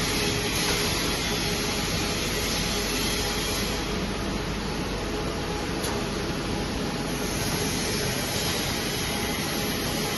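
Steady machinery noise of an automatic toilet paper heat shrink packing machine running: an even, hissing rush of blower air with a faint hum underneath.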